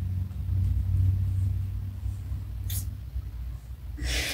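Low steady hum, with a single short crisp snap of a playing card laid on the glass table about two and a half seconds in, and a burst of breathy laughter right at the end.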